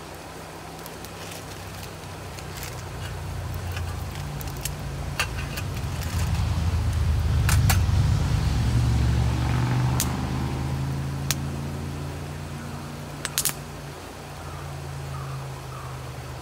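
Split-log wood fire crackling with scattered sharp pops, under a low engine rumble that builds to its loudest around the middle and then fades away, as a vehicle passing by.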